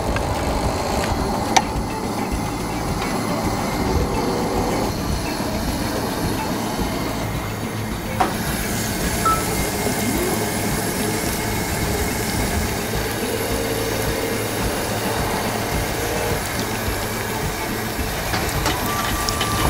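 Steady rumble of a gas camp stove's burners. From about eight seconds in, a breaded cheese cutlet sizzles as it deep-fries in hot oil in a cast-iron Dutch oven.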